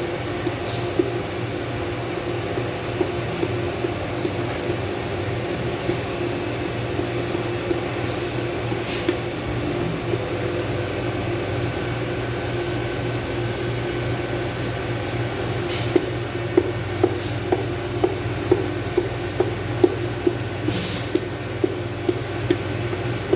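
A steady mechanical hum with a few fixed tones. Near the end it is joined by a run of sharp taps, about two a second.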